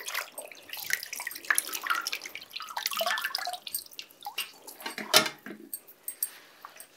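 Soaked fabric lifted out of a pot of onion-skin dye bath, the dye liquid splashing and dripping back into the pot, with a louder splash about five seconds in as the wet cloth is dropped into a colander.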